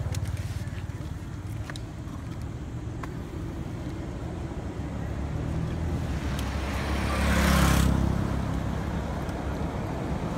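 Motor vehicle engine running with a low rumble, and a vehicle passing on the road, loudest about seven and a half seconds in, with tyre and road hiss. A few faint light clicks in the first few seconds.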